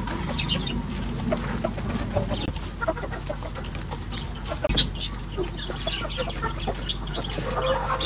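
Chickens clucking in short, scattered calls, with a single sharp knock a little under five seconds in.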